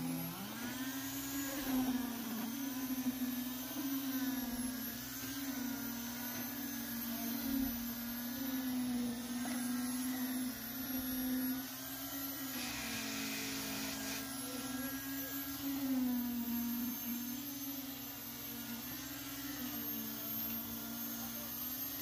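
Concrete needle (poker) vibrator running, a steady motor whine whose pitch sags and recovers every few seconds as the poker is worked through freshly poured slab concrete to compact it.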